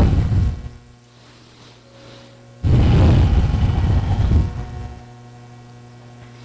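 Steady low electrical hum from an old recording setup, broken twice by loud bursts of close noise right on the microphone: a brief one at the start and a longer one of about two seconds from a third of the way in.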